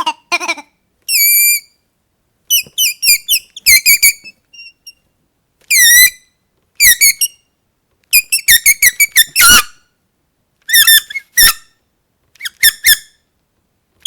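Squeaky dog toy squeezed over and over: short, high-pitched squeaks, some single and held about half a second, others in quick runs of four or five, with pauses between.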